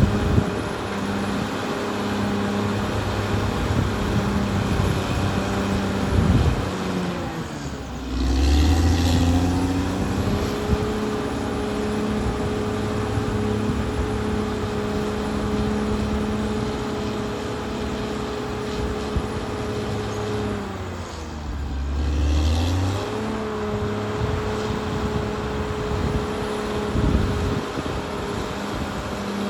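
Caterpillar D6R XL bulldozer's diesel engine running steadily at working revs. Its pitch sags and recovers twice, about 8 seconds in and again about 21 seconds in, with a deeper rumble at each dip.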